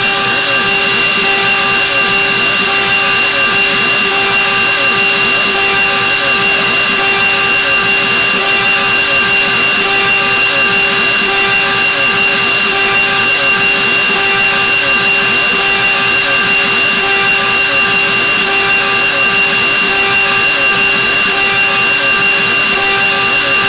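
Mini CNC router spindle running fast with a small end mill cutting carbon steel: a steady high-pitched whine over a continuous hiss of the cut.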